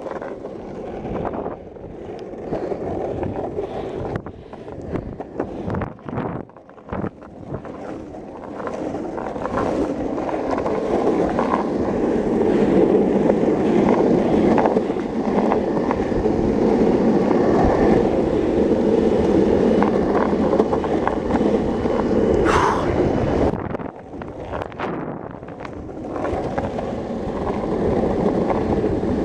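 Longboard wheels rolling over pavement in a steady rough rumble that grows louder about a third of the way in, with wind on the microphone. A brief high-pitched squeal comes about three-quarters of the way through, followed by a short lull.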